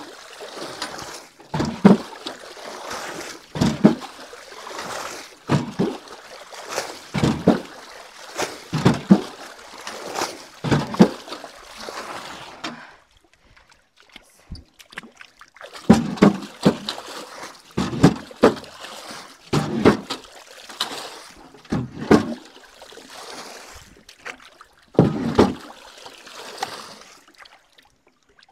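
Bailing water out of a flooded canoe with a bucket: each scoop is thrown overboard with a splash about every two seconds, with a pause of a few seconds just before the middle.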